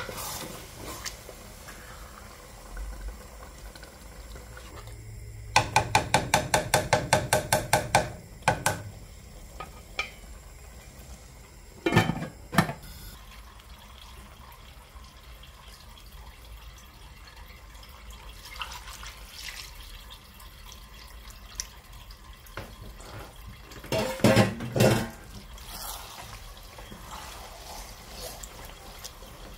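A wooden spoon stirring wet rice in an aluminium pot, knocking against the metal. A quick run of about a dozen ringing taps comes a few seconds in, and a couple of louder knocks come around the middle and again near the end.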